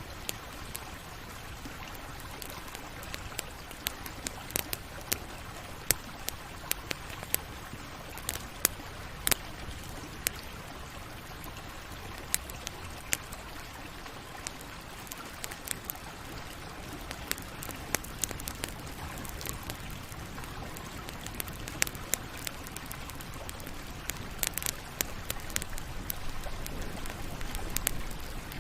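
Campfire burning, with a steady low hiss and rumble and frequent irregular sharp crackles and pops, a few much louder than the rest.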